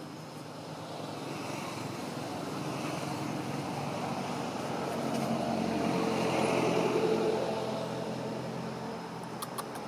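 Engine of a passing motor vehicle, a steady hum that swells over several seconds and then fades. A few sharp clicks near the end.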